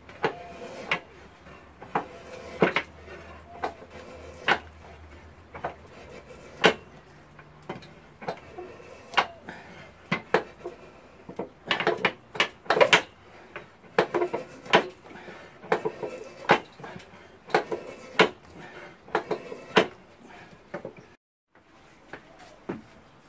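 A clog-maker's paradou, a long hinged bench knife, shaving a wooden clog blank: a string of sharp cutting strokes and knocks of the blade on the wood, irregular at about one a second, coming faster and louder in the middle. It breaks off for a moment near the end.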